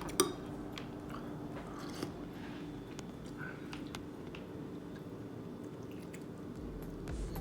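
A person chewing and eating a mouthful of chicken soup, with small scattered clicks. There is a sharp click just after the start.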